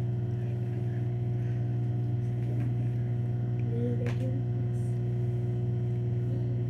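Microwave oven running, a steady electrical hum that holds level, with a faint click about four seconds in.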